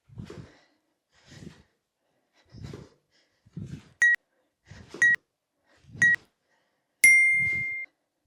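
Interval timer counting down with three short beeps a second apart, then one long beep marking the end of the work interval. Under it, a steady run of dull thumps about once a second from feet landing and breathing during side-to-side skater jumps.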